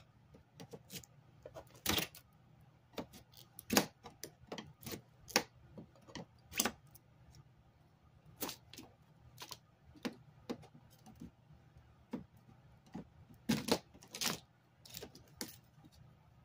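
Irregular clicks, taps and scrapes of a flat screwdriver prying at a flat-screen TV's metal panel frame to work loose a circuit-board strip, with a faint steady low hum underneath.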